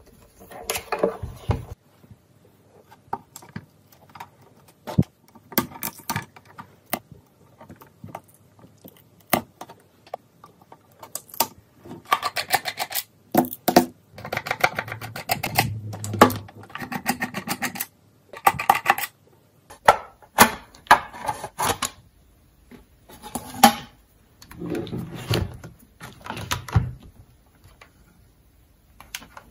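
Hands handling and opening a soldering station's plastic housing: irregular clicks, knocks and scraping of plastic, with a long stretch of rattling in the middle.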